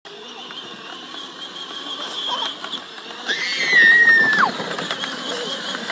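A young girl's long, high-pitched squeal about three seconds in, held for a second and then dropping away, over a steady high whine and low rumble in the background.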